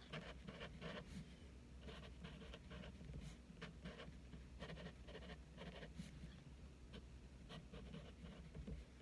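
Faint scratching of a pen writing numbers on a paper calendar, many short strokes in quick, irregular succession.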